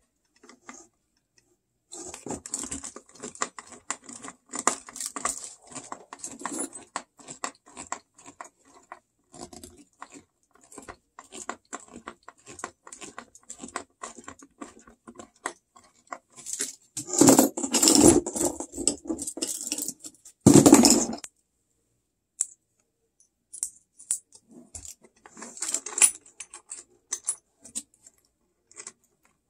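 Small metal hand tools and hardware clinking and rattling: a screwdriver and wrench worked on a bolt, and tools handled inside a foil-lined box. A run of light clicks gives way to two louder, denser bursts of rattling a little past the middle, then scattered clinks.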